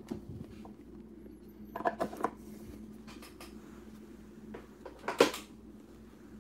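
A trading-card box and its wrapped pack being handled by hand: a few short knocks and rustles, the loudest about five seconds in, over a steady low hum.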